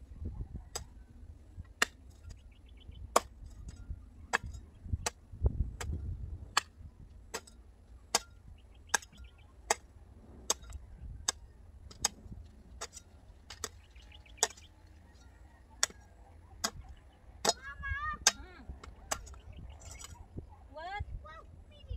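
Garden hoes chopping into dry, stony soil, a sharp strike about every three-quarters of a second. A bird gives a few chirping calls near the end.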